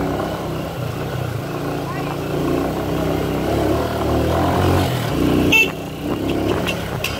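Motorcycle engine running steadily while riding through a sandy dirt street, with a short sharp sound about five and a half seconds in.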